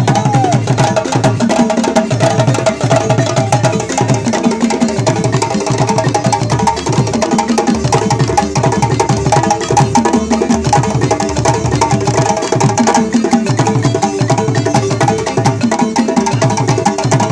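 West African percussion ensemble playing: balafon, its wooden keys struck in rapid melodic runs, over djembe and calabash drums keeping a steady rhythm with repeated deep strokes.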